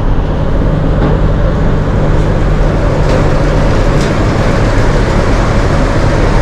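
Steady drone of a boat's engine under way, a constant low hum with a few faint clicks over it.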